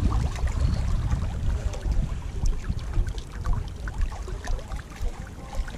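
Uneven, gusting low rumble of wind buffeting the microphone.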